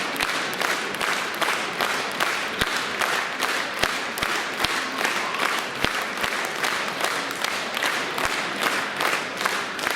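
Concert-hall audience applauding, a steady dense clatter of many hands clapping.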